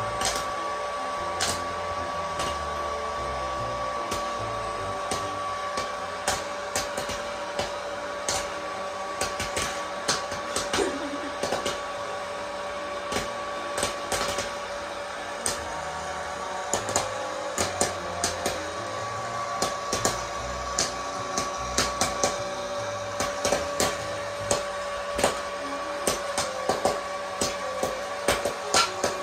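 Hot-air popcorn popper running: its fan makes a steady whirring hum with a constant whine, while kernels pop as sharp clicks. The pops are sparse at first and come thick and fast in the second half.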